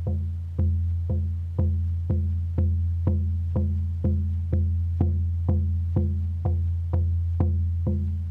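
Frame drum struck with a beater in a steady, even beat of about two strokes a second. Each stroke has a sharp attack and a deep boom that rings on until the next.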